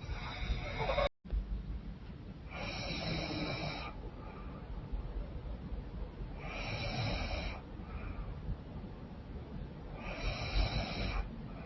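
A woman snoring in her sleep through a blocked, runny nose: four noisy, hissing breaths, about one every four seconds. The sound cuts out sharply for an instant about a second in.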